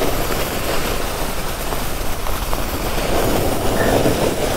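Skibike skis scraping over packed snow at speed, a steady rolling hiss and rumble, with wind on the microphone.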